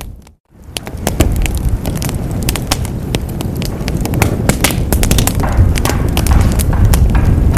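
Wood fire burning in a fireplace: dense crackling and sharp popping over a low, steady rumble of the flames. Just after the start the sound drops out for a moment and fades back in.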